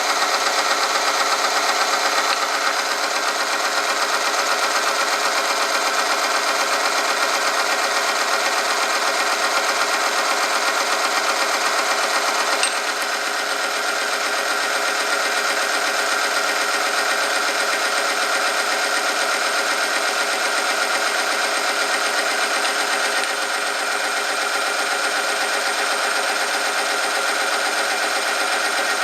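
Oil-film friction test machine running under weighted load, its motor-driven steel part rubbing on a test sample in Fuchs Titan Syn MC 10W40 oil heated to 100°C. It gives a steady mechanical whine and rubbing. A sharp click comes about twelve seconds in, after which it runs a little quieter.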